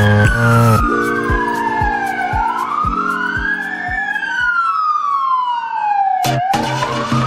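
Emergency-vehicle wail sirens, two tones sweeping up and down out of step with each other, over electronic music with a bass kick about twice a second. The music drops out about halfway, leaving the sirens alone. A sharp hit comes about six seconds in, and the music comes back in.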